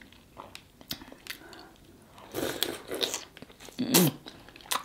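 Close-miked mukbang eating: wet lip smacks and chewing as sauce-coated king crab leg meat is bitten off and eaten, with a short hummed 'mm' about four seconds in.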